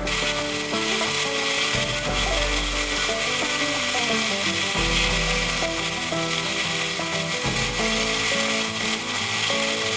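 Vertical belt sander running as a wooden piece is pressed against its belt, a steady abrasive hiss of wood being sanded. Background music with a pulsing bass plays underneath.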